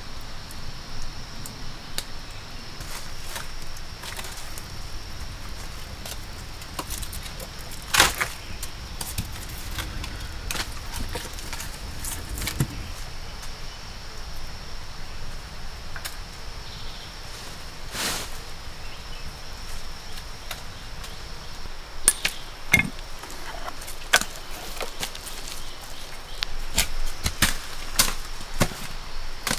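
Scattered knocks, snaps and rustles of sticks and dry palm fronds being handled, with a sharp knock about eight seconds in and a cluster of them near the end, over a steady high-pitched drone of forest insects.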